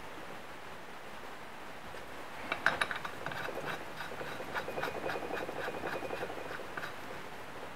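Small metal clicking and scraping as nuts are worked onto the cylinder studs of a small two-stroke engine during assembly. A quick run of clicks starts a couple of seconds in and goes on for about four seconds.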